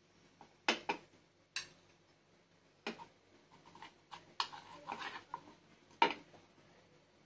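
Steel spoon clinking and scraping against a paniyaram pan as small cakes are lifted out of its cups: a series of sharp clinks, with a short scraping stretch a little past the middle.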